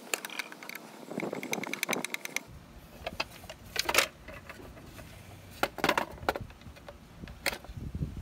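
Plastic clicks, knocks and short scrapes as the control housing is lifted off a Hayward pool pump and its wire and small connector are handled.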